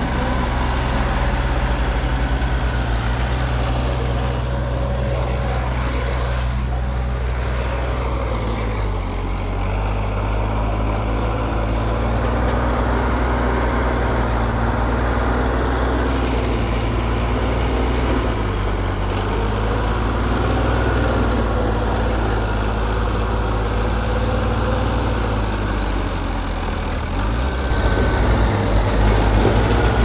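Heavy diesel engine of earthmoving machinery running steadily, with a thin high whine above it. The engine note changes about a third of the way in, then revs up and gets louder near the end.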